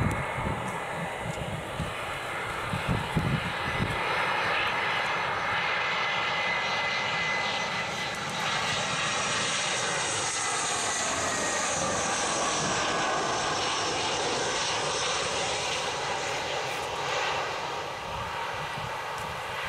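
Airbus A319's twin CFM56 turbofans passing low overhead on landing approach: steady jet noise that swells in the middle, where its whine drops in pitch as the aircraft goes over.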